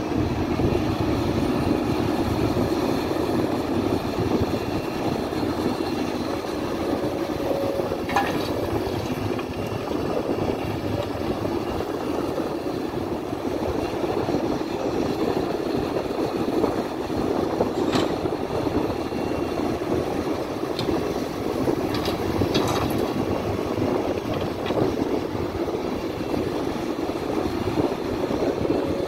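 Hidromek HMK310 33-tonne crawler excavator's diesel engine running steadily as it digs, with a few sharp clinks scattered through.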